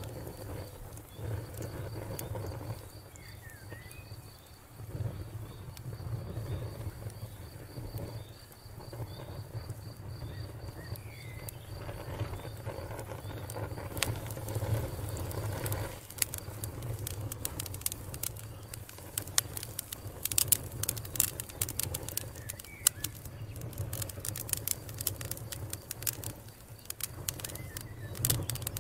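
Wood campfire crackling and popping under a low steady rumble, the pops coming thicker and sharper in the second half. A bird chirps a few times.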